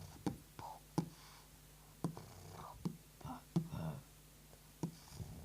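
Beatboxing mouth sounds: sharp pops or clicks about every second, with short breathy and hummed sounds between them.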